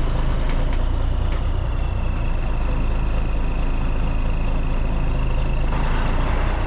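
Heavy-haulage lorry's diesel engine running steadily, heard close up from its low-loader trailer, with a thin steady high whine joining from about a second and a half in.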